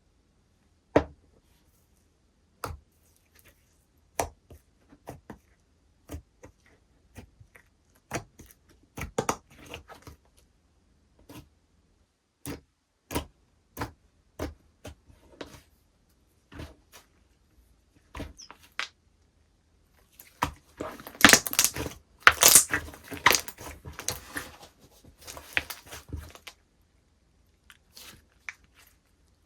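Slime being squeezed and stretched by hand, giving sharp wet pops and clicks every second or so, then a dense stretch of loud crackling about twenty seconds in.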